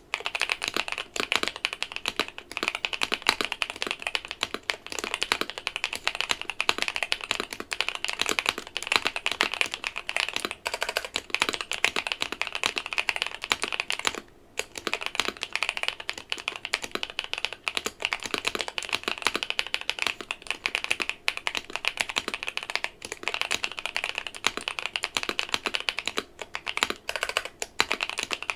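Akko Mod007 mechanical keyboard with Green Tea switches, an FR4 plate and Cherry-profile keycaps, its case and PCB lined with painter's tape and popsicle sticks, being typed on quickly: a dense, continuous clatter of keystrokes with a brief pause about fourteen seconds in.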